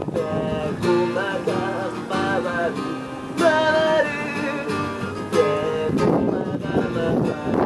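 Music with a strummed acoustic guitar carrying a wavering melody line.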